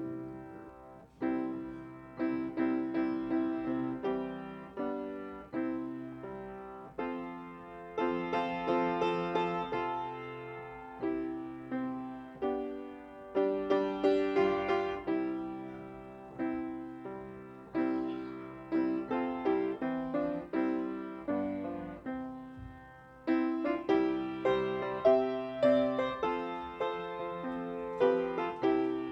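Piano playing slow, full chords, each struck sharply and left to ring and fade: a closing postlude at the end of a service.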